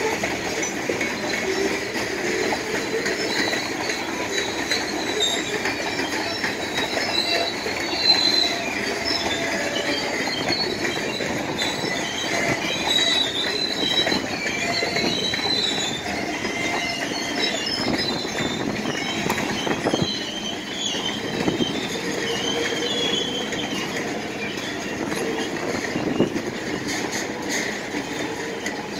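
Manifest freight train's cars rolling past with a steady rumble and clatter, while the wheels give wavering high-pitched squeals.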